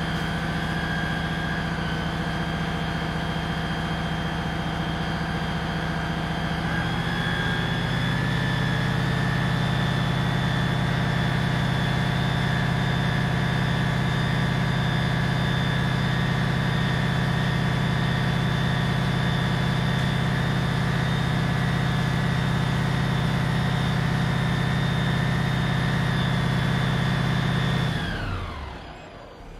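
Fire engine running steadily, a deep engine note with a high whine over it. About seven seconds in the note shifts and grows a little louder, and near the end the engine and the whine wind down together and stop.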